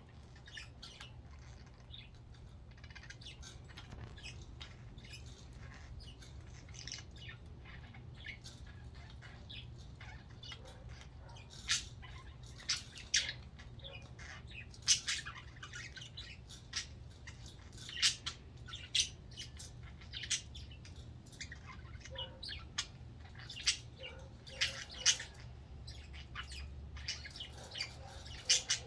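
Several pet budgerigars chirping and squawking in short, high calls, with louder sharp calls coming more often from about a third of the way in.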